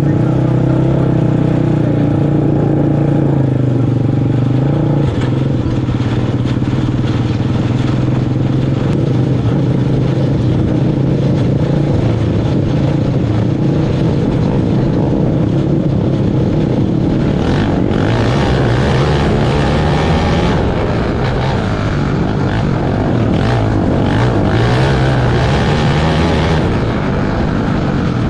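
Outlaw kart engines running, a loud continuous drone whose pitch wavers up and down, growing rougher and noisier about two-thirds of the way through.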